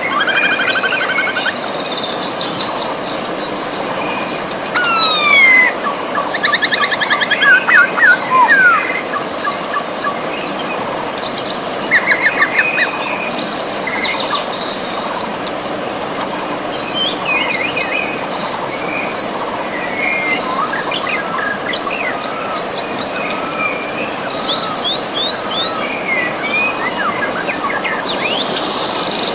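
Steady rush of a flowing river with songbirds singing over it: many short trills, quick falling whistles and rapid chirp series, busiest in the first half.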